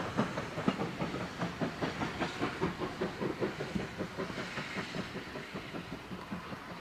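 Steam locomotive working in a railway yard: a steady rhythm of soft beats, about four a second, over a hiss of steam, fading a little towards the end.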